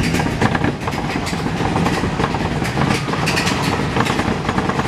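Space Mountain roller coaster cars rattling steadily along the track.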